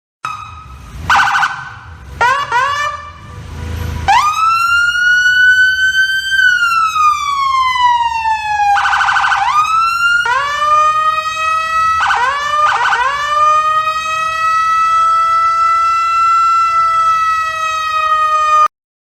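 Emergency-vehicle siren sound effect. It opens with a few short chirps, then gives one slow wail that rises and falls, breaks into brief fast warbling twice, and settles into a long steady tone that cuts off suddenly near the end.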